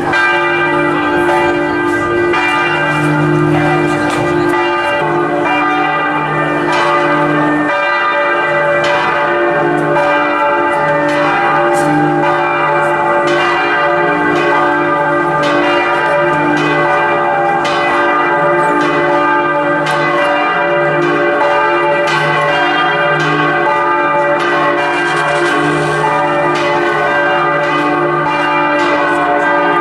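Several church bells in the Santa Croce basilica bell tower ringing together in a continuous festive peal. Repeated strikes sound over the long, steady hum of the larger bells.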